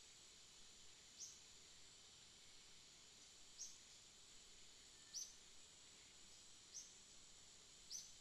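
Faint outdoor ambience: a steady high hiss with a short, high chirp about every one and a half seconds, five in all.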